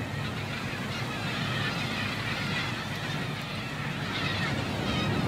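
Fishing trawler on the open deck: the boat's engine runs with a steady low drone under wind and sea noise.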